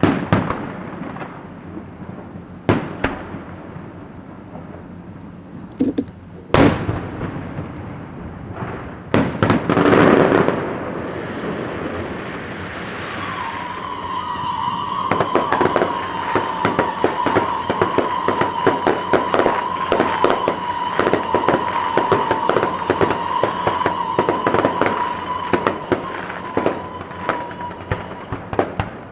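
Fireworks going off: scattered single bangs, then a louder burst about ten seconds in. From about halfway, a steady high whistle sounds over a long run of rapid crackling and popping, and both stop near the end.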